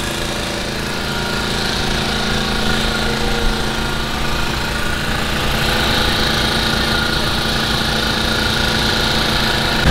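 An engine running steadily at idle, an even note with a regular low pulse.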